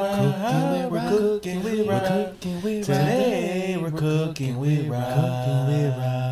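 Intro music: a low voice singing in sliding, chant-like phrases, settling into a long held note near the end.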